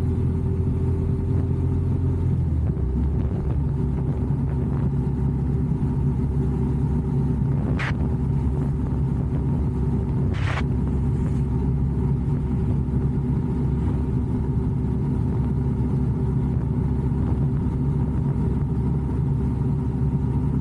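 Kawasaki W650's air-cooled parallel-twin engine running steadily while the motorcycle cruises along the road.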